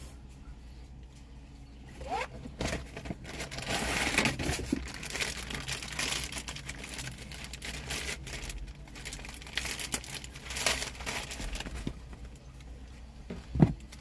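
Plastic wrapping crinkling and rustling as hands handle and unwrap a new cabin air filter, starting about two seconds in, with one sharp tap near the end.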